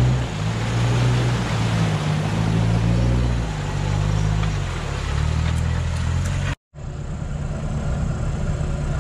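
An off-road 4x4's engine revs up and down as it drives through a shallow stream, with water splashing from the wheels. After an abrupt cut about two-thirds of the way through, an engine runs steadily.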